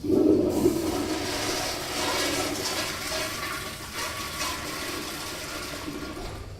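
Toilet flushing: a sudden loud rush of water that starts all at once, then eases slowly over several seconds.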